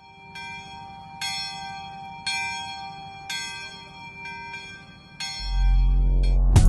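A single bell tolling slowly, about once a second, each strike ringing on: a funeral toll. Near the end a loud low swell rises under it as an intro jingle begins.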